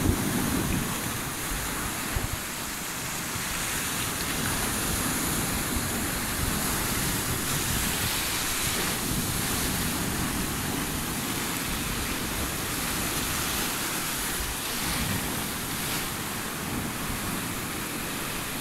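Mediterranean surf breaking and washing over flat shoreline rocks: a steady rush of foaming water.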